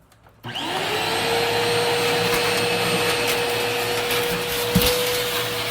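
Vacuum cleaner switched on about half a second in, its motor winding up to a steady whine and running on.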